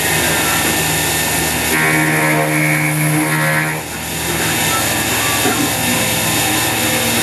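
CNC mini mill (X2) spindle running at about 5,000 RPM with a half-inch two-flute high-speed-steel end mill cutting a 6061 aluminium housing, a steady machining whine. A stronger steady tone comes in about two seconds in and drops away with a brief dip just before four seconds, as the cut changes.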